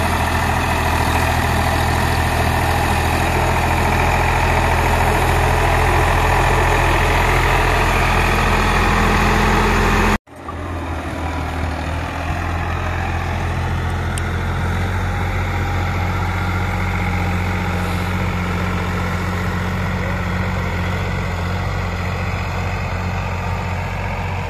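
Sonalika tractor's diesel engine running steadily under load as it pulls a rotary tiller through sandy soil. The sound is close and loud at first, drops out for a moment about ten seconds in, and then continues from further away, softer and duller.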